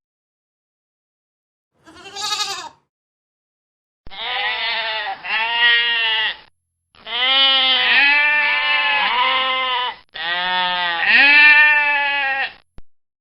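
Goats bleating: one short wavering bleat about two seconds in, then three long stretches of loud bleating with calls overlapping. Each stretch starts and stops abruptly, with dead silence between them.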